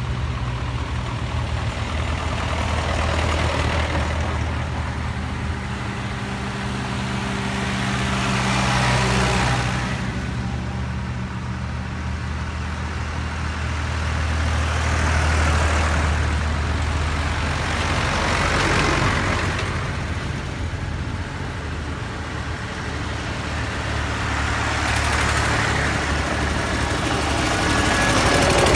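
Vintage tractors drive past one after another with their engines running at low revs. The engine sound grows louder each time a tractor comes close and fades as it moves away.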